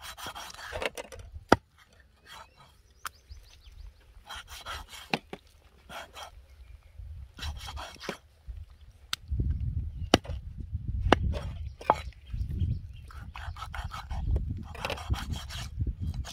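Rough scraping or rubbing strokes in short bouts, with single sharp knocks between them and a low rumble through the second half.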